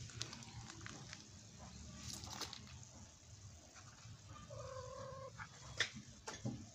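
A cat's single short, steady mew past the middle, over light taps and scratches of kittens wrestling in a plastic dustpan.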